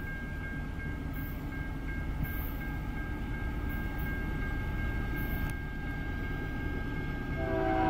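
Union Pacific GE AC44CWCTE diesel locomotive approaching at the head of a loaded coal train: a low steady rumble slowly growing louder, with a faint steady high tone over it. Near the end the locomotive's air horn starts to sound.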